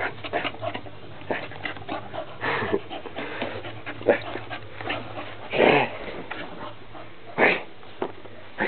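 Staffordshire bull terrier play-fighting with a hand, giving a string of short vocal noises, with the longest and loudest a little past halfway and another near the end.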